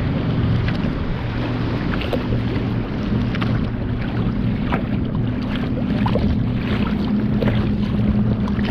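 Wind buffeting the microphone and choppy lake water slapping and splashing against the bow of a kayak under way, with many small splashes throughout. A steady low hum runs underneath.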